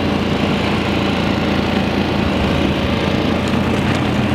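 Small vehicle engine running steadily at speed while being ridden across the ice, with rushing wind noise over it.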